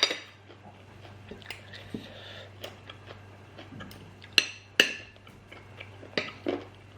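Cutlery clinking and scraping against a plate while eating, a scatter of short sharp clinks with the loudest two about four and a half and five seconds in.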